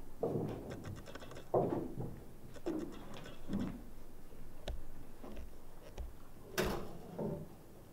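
A wooden marionette being handled on a wooden stage floor: irregular soft knocks and clunks, a brief clatter about a second in, and a sharper knock about six and a half seconds in.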